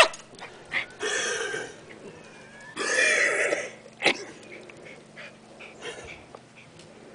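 A dog coughing in two fits, one about a second in and a longer one around three seconds in, followed by a sharp click and fainter little hacks. The owner takes it for a cardiac cough.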